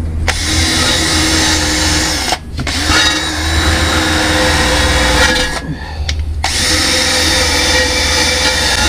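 Electric drill spinning a wire brush against a steel differential cover, scrubbing off old gear oil and grime: a steady motor whine with a scratchy hiss. It stops briefly twice, about two and a half seconds in and around six seconds in.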